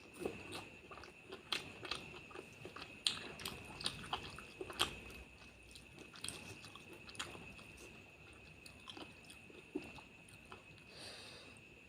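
Close-up mouth sounds of a person eating curry and rice: irregular wet clicks, smacks and chewing, with a few sharper bites, the loudest about three and five seconds in. A faint steady high-pitched tone runs underneath.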